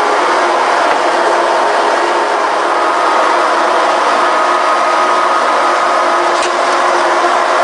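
Sound insulation board punching machine running steadily as its pinned rollers perforate a board: a loud, even mechanical noise with a faint steady hum, and a short tick about six and a half seconds in.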